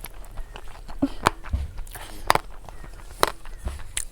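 Handling noise: a series of sharp clicks and knocks, the three loudest about a second apart, with fainter taps between.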